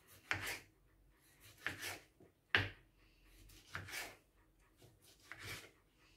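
Kitchen knife slicing tomatoes into rounds on a plastic cutting board: five separate cuts, roughly one every second or so, each a short scrape ending on the board.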